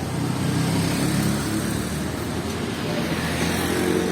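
Road traffic going by, with a motor vehicle's engine running as a steady low rumble.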